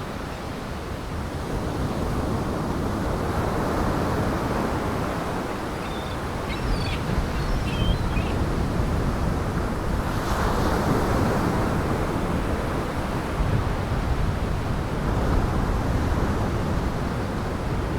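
Heavy surf crashing and wind blowing in a gale, a dense rushing noise that swells and eases in waves. A few faint high chirps come about six to eight seconds in.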